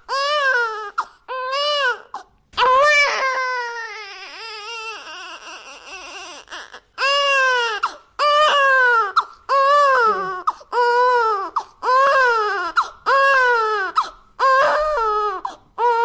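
Baby crying sound effect: loud, high-pitched wailing cries that rise and fall, about one a second, with one longer drawn-out wail a few seconds in that trails away before the short cries start again.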